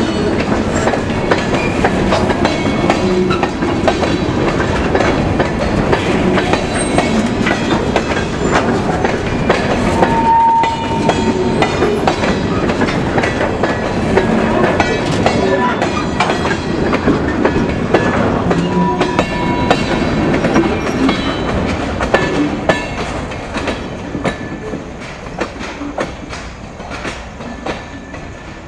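Empty freight cars of a trash train rolling past, wheels clicking steadily over rail joints with rattling and a brief ringing squeal about ten seconds in. The sound fades over the last several seconds as the train moves away.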